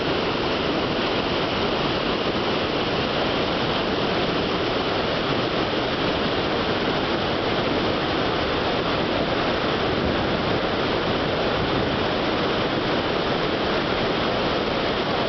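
The Devil's Throat, the largest cataract of Iguazu Falls, crashing down in a loud, steady, unbroken roar of falling water.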